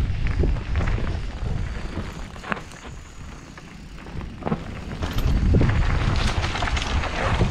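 Wind buffeting a moving camera's microphone, a heavy low rumble with scattered sharp knocks and rattles. It eases off for a couple of seconds around the middle, then rises again.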